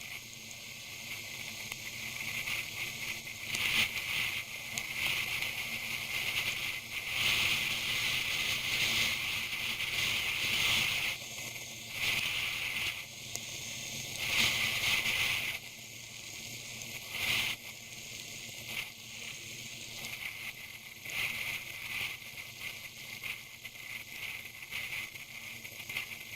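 Wind and rain-spray hiss on a motorcycle rider's camera while riding through rain on a wet road, swelling and fading in surges.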